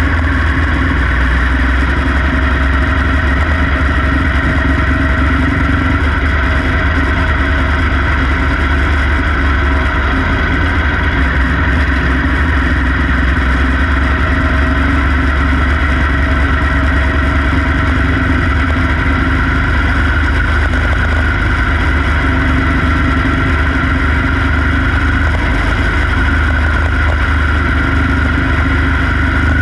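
Quarter midget race car's small single-cylinder engine running steadily at speed, heard from on board the car, its pitch drifting only slightly, over a constant heavy low rumble.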